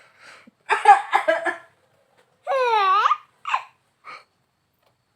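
Baby laughing: a quick run of short bursts about a second in, then one long high squeal that falls and rises in pitch, and a couple of short giggles after it.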